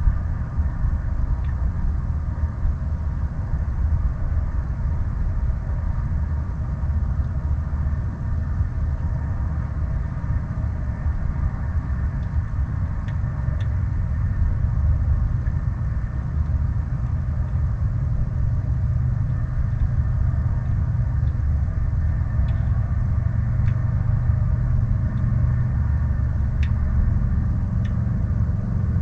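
Wind buffeting the camera microphone as a steady low rumble, over water lapping against the canoe hull, with a few faint ticks.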